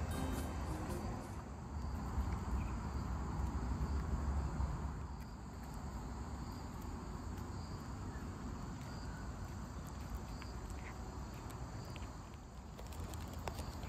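Insects chirping steadily in the background, over a low rumble of outdoor ambience.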